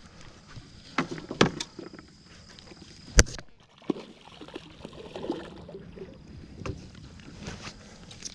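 Scattered knocks and clatter in a small jon boat as the landing net is grabbed and handled to land a hooked bass. One sharp knock about three seconds in is the loudest, with softer rustling between the knocks.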